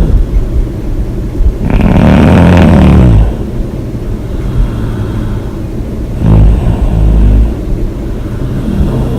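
A woman snoring heavily, one loud rattling snore about two seconds in and a deeper, lower one a little past six seconds, with rough breathing between.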